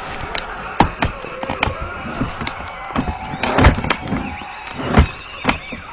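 Irregular knocks and clicks, about a dozen sharp hits, loudest in a cluster about three and a half seconds in and again near five seconds, over a faint background.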